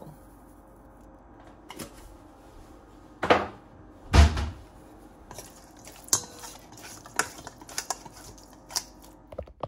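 Wooden chopsticks clicking and scraping against a stainless steel mixing bowl as marinated squirrel pieces are tossed. There are two louder knocks about three and four seconds in, the second a heavy low thud, then a run of quick sharp clicks.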